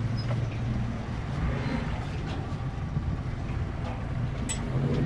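Boat's outboard motor running steadily at low speed, a low hum.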